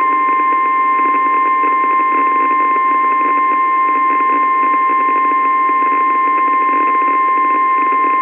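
NOAA Weather Radio 1050 Hz warning alarm tone: a single steady, unbroken tone over radio hiss, cutting in abruptly. It is the alert that a warning broadcast, here a severe thunderstorm warning, is about to follow.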